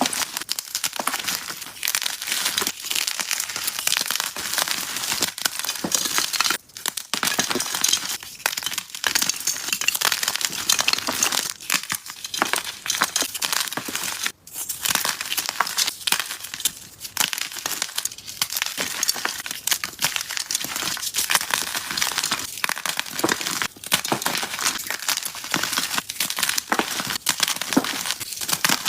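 Blocks of dyed gym chalk being crushed and crumbled: a near-continuous dry crunching and crackling, broken by a few short pauses.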